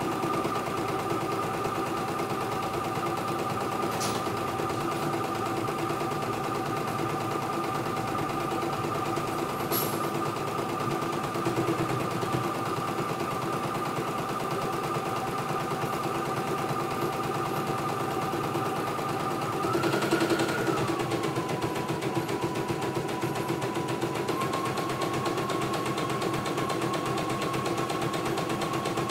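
CNY E900 embroidery machine stitching, a rapid steady needle clatter over its motor whine. About twenty seconds in the motor's pitch rises briefly, then drops and settles at a slower speed, picking up slightly a few seconds later.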